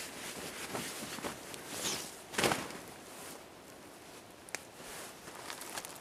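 Fabric rustling and brushing as a blanket is spread out and smoothed over a tarp groundsheet, with one louder swish about two and a half seconds in and a few light clicks near the end.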